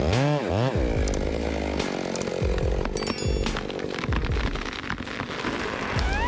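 Stihl MS 880 large chainsaw revving: its pitch swings up and down twice in the first second, then it runs steadily at high speed and climbs again near the end.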